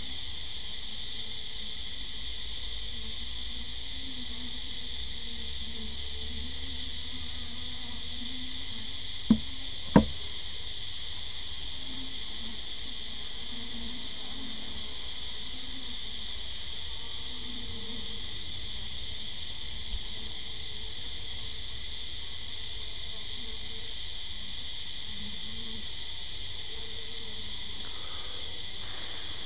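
A steady, high-pitched chorus of background insects, with a faint wavering low hum of calm honeybees working the opened nuc. Two sharp knocks about nine and ten seconds in, from the wooden frames being handled against the hive box.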